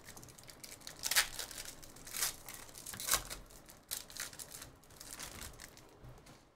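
Foil trading-card pack wrapper being torn open and crinkled by hand, a run of short, sharp crackles at irregular intervals as the cards are pulled out.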